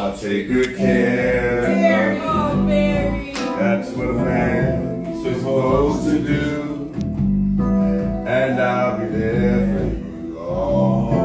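Voices singing ad-lib runs over held chords on an electric keyboard.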